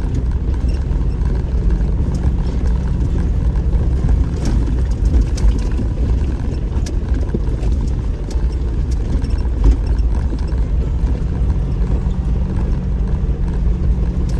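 Off-road vehicle driving a rough desert dirt track: a steady low engine drone with rattling and crunching from the tyres and body over the rough ground.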